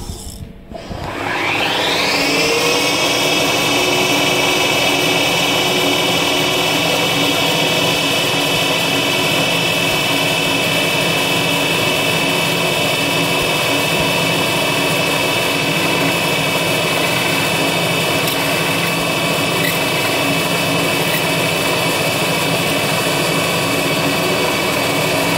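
CNC milling machine spindle spinning up with a rising whine about a second in, then running with a steady high whine while a small end mill cuts a thin aluminium plate.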